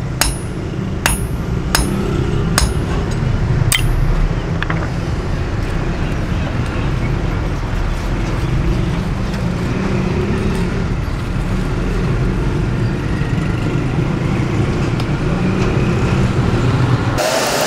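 Five sharp metal-on-metal strikes ringing off a steel anvil in the first four seconds, over a steady low rumble.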